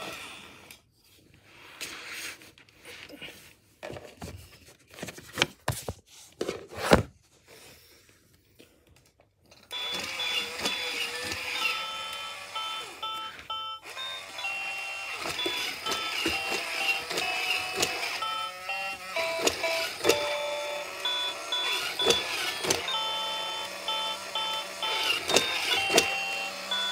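Robot puppy toy: a few scattered clicks and knocks at first, then from about ten seconds in a continuous electronic tune of short beeping notes at several pitches.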